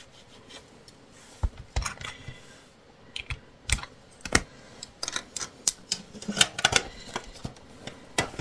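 Irregular small clicks and taps as stamping supplies are handled on the craft table: a clear acrylic stamp block and ink pads being picked up, wiped and set down.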